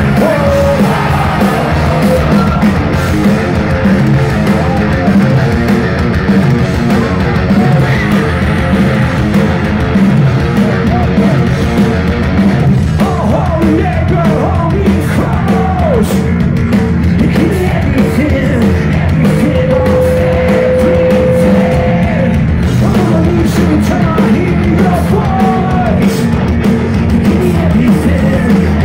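Punk rock band playing live: electric guitars, bass and drums with a singer's voice, heard from among the crowd. A long note is held a little past halfway.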